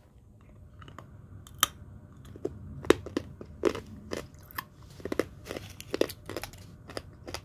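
A run of irregular crunches and crackles close to the microphone, a few sharp loud ones among quieter ones.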